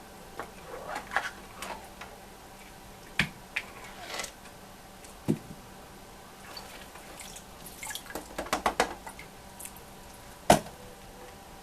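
Water dripping and splashing while the wet plastic parts of a Marineland H.O.T. Magnum 250 canister filter are handled and pulled apart. Scattered clicks and knocks, with a cluster of rattling about 8 seconds in and one sharp knock near the end.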